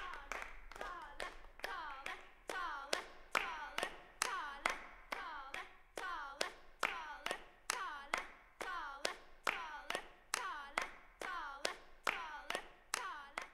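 Hands clapping in a steady rhythm, about one and a half claps a second, each clap followed by a short falling pitched tone.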